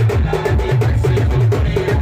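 Live band playing timli dance music: a fast, steady drum beat over a repeating bass line.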